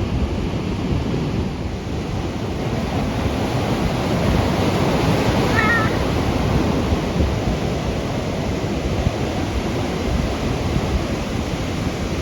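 Ocean surf breaking and washing ashore, a steady rushing noise. About five and a half seconds in there is one short, warbling high call.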